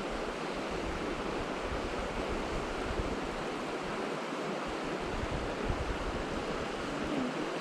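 Creek water rushing steadily over rocks in a strong current, with some wind buffeting the microphone.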